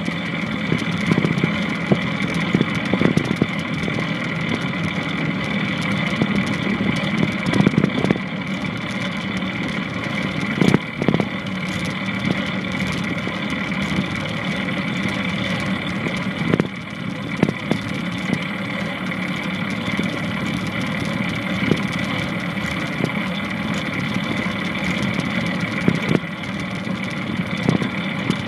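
Longboard wheels rolling steadily over pavement, with a few short sharp knocks now and then.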